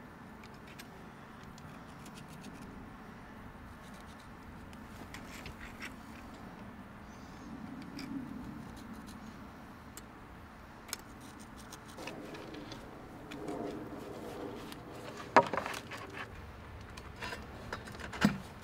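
Faint handling of a steel tape measure and pencil on a brick wall: small clicks and light scraping over a quiet background, with one sharp knock about fifteen seconds in.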